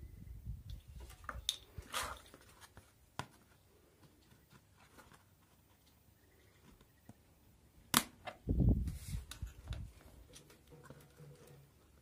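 Scattered sharp clicks and knocks of hands handling a plastic bottle cap, a plastic tray and a thin metal rod. The loudest click comes about 8 seconds in, followed by a second of low thumps.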